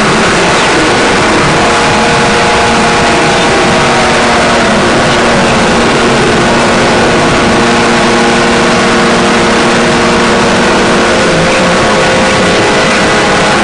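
Harsh noise drone music: a loud, unbroken wall of noise with several sustained droning tones. One tone glides downward about four to six seconds in.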